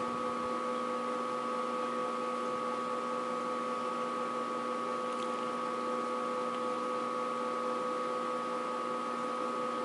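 Steady background machine hum holding several fixed pitches over a faint hiss, with no change from start to end.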